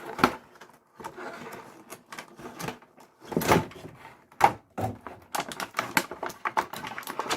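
Small plastic toy parts and packaging being handled: a run of irregular clicks and taps with some rustling between them.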